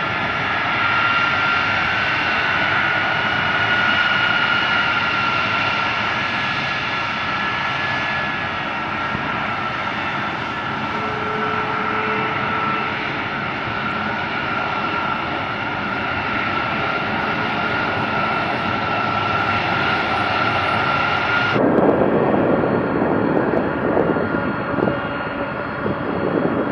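Turbofan engines of a C-5M Super Galaxy transport aircraft running with a steady high whine over a broad rush. About 21 seconds in, the sound changes abruptly to a lower, rougher rumble.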